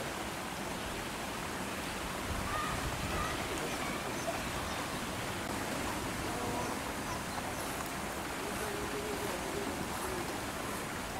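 Steady rushing background noise with faint, distant voices now and then.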